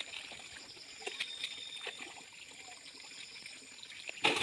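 Shallow muddy stream water trickling and sloshing faintly around a man wading with fishing nets, with a few small clicks. Near the end a sudden loud splash of water.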